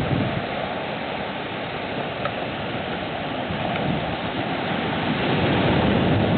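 Typhoon wind and rain making a steady rushing noise, with wind gusting on the microphone and swelling toward the end.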